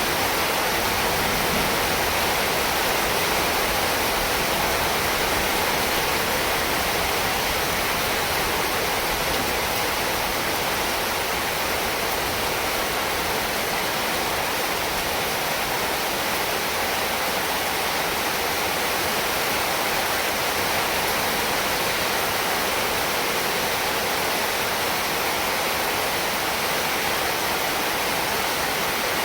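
Heavy rain falling steadily, an even, unbroken hiss with no single drops or gusts standing out.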